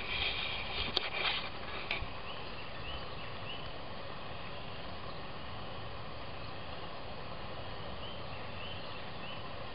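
Rustling and two sharp clicks from the camcorder being handled and swung, in the first two seconds. Then a steady open-air background with faint, short bird chirps in two runs of three.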